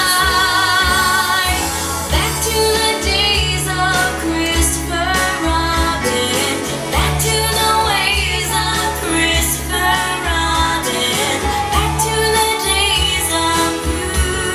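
A soft pop song played back over Bowers & Wilkins 607 S2 Anniversary bookshelf speakers and picked up by a camera microphone in the listening room. A singer's voice holds the last note of a line for about the first second and a half, then an instrumental passage follows with a strong bass line.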